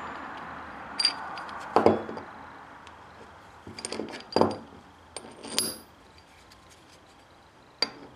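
Small steel hinge plates, a nut and a bolt clinking and knocking as they are handled and set down on a wooden workbench. There are several separate sharp metallic clicks with a brief ring, and a quiet pause near the end.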